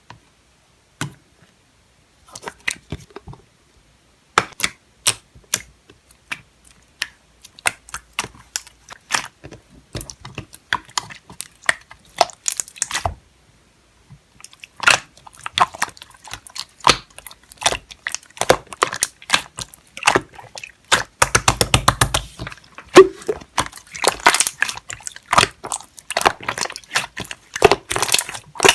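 Yellow slime being squished and pressed by hand, making a stream of sticky clicks and small pops. The clicks are sparse at first, pause briefly partway through, then come thick and fast and louder.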